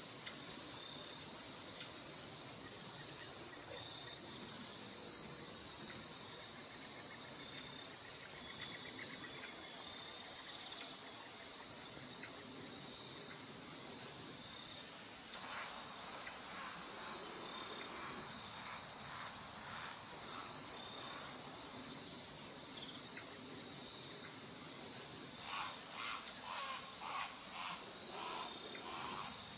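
Steady, high-pitched insect chorus of crickets trilling. Partway through and again near the end it is joined by runs of short, evenly repeated calls from another animal.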